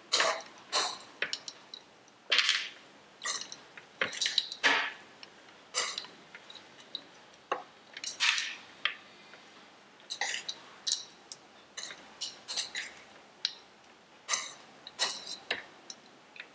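Steel spoon stirring soaked flattened rice (poha) in a plastic bowl: irregular scrapes and taps of the spoon against the bowl, about one every half second to a second.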